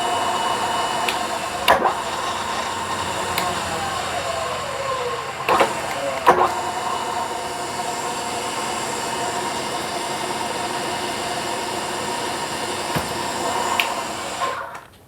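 Milling machine spindle running steadily, with a few sharp knocks and a falling whine a few seconds in, then shutting off just before the end.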